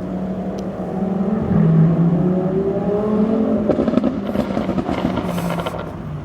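Lamborghini Huracán LP610-4's V10 through a Capristo aftermarket exhaust, rising in pitch as it revs up. From about four seconds in comes a rapid string of exhaust crackles and pops.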